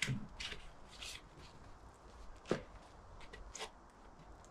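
Packaging being handled and pulled off a new bicycle: short rustles with a sharp click about two and a half seconds in.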